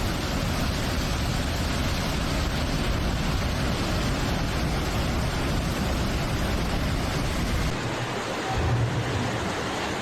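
Steady rushing of fast-flowing floodwater. The sound changes abruptly near the end as a different recording takes over.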